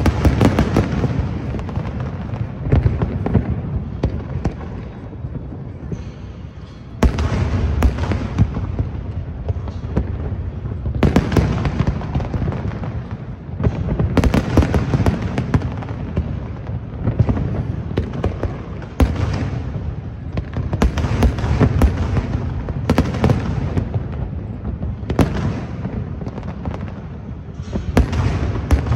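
Aerial fireworks display: shells bursting one after another in loud booms with dense crackling, with fresh volleys breaking in suddenly every few seconds.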